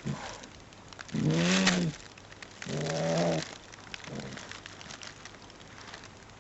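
A sleepy dog groaning and grumbling. There are three low, drawn-out grumbles about a second and a half apart, the first the breathiest, and a faint short one after them.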